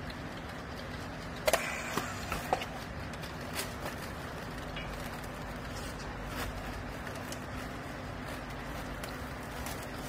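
Steady machine hum from the textile baler, with a few sharp plastic clicks and clacks from the strapping work around the bale, the loudest about a second and a half in.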